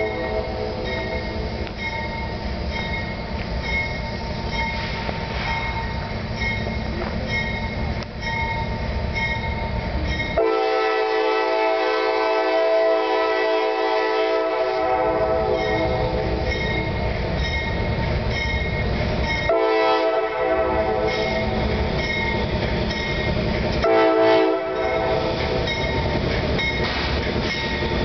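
Norfolk Southern freight train's lead diesel locomotive approaching and sounding its horn over the rumble of its engines. About ten seconds in the horn comes loud: two long blasts, a short one and a long one, the grade-crossing signal.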